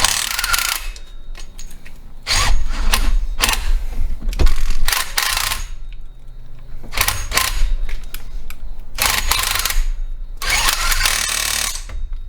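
A handheld power tool run in about seven short bursts of roughly a second each, with pauses between, over a steady low hum.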